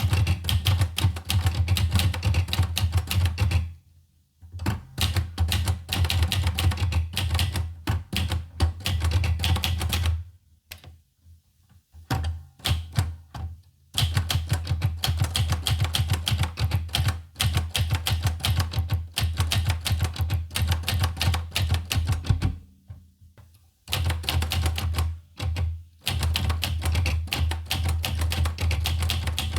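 Olivetti Lettera 25 portable manual typewriter being typed on in fast runs of keystrokes, each key strike a sharp clack with a low thud beneath. The typing stops briefly about 4, 11, 13 and 23 seconds in, then resumes.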